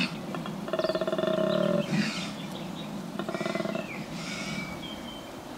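Male koala bellowing: a low-pitched, buzzy, pulsing call made by breathing in and out continuously, loudest about a second in, with a shorter call after about three seconds. It serves both to call to females and to warn other males of his presence.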